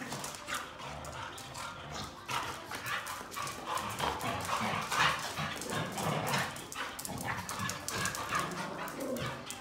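Dogs play-fighting, with short vocalizations, scuffling bodies and claws clicking and scrabbling on a smooth concrete floor.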